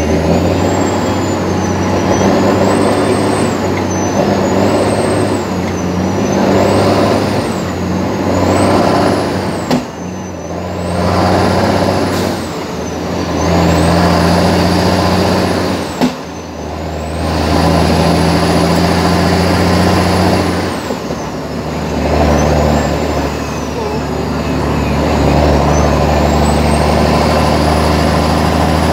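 International 9900i truck's diesel engine pulling hard, heard from inside the cab as the driver works up through the gears of its manual gearbox, the engine note swelling and then dropping away at each shift. A sharp click comes twice, about ten and sixteen seconds in, and a thin high whistle rises and falls along with it.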